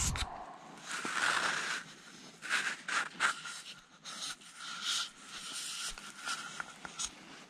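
Nylon tent fabric and a sleeping bag rustling and scraping in irregular bursts as someone shifts about inside a small tent.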